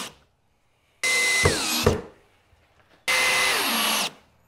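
Cordless drill driving screws into wood: a short tail of one run, then two runs of about a second each, the motor's whine dropping in pitch as each screw pulls tight, with two sharp knocks during the first.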